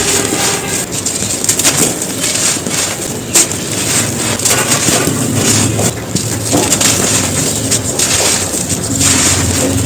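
Soft, dry, dusty bricks being crushed and crumbled: dense, continuous crunching with many sharp gritty crackles.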